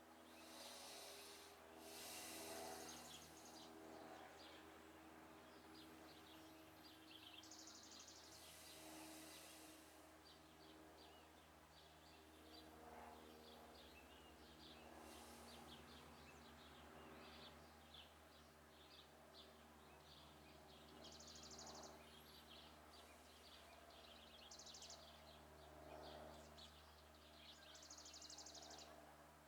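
Faint bird chirps and a few short trills over a low steady hum.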